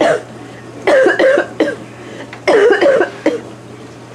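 A person coughing in two harsh hacking bouts, one about a second in and another at about two and a half seconds.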